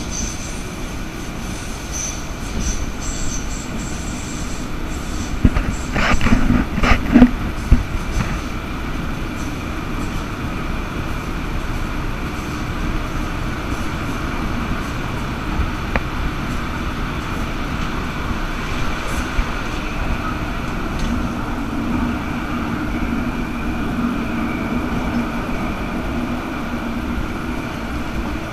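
Bergen Light Rail tram running through a tunnel, heard from inside the car: a steady rumble of wheels on rail and traction equipment. A faint high squeal sounds in the first few seconds, and a cluster of louder knocks and rattles comes about six to eight seconds in.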